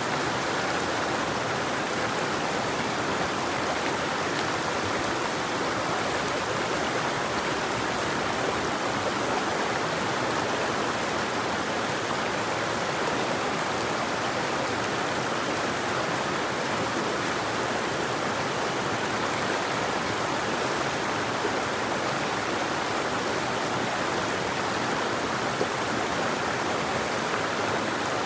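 River water flowing in a steady, even rush, with no birdsong.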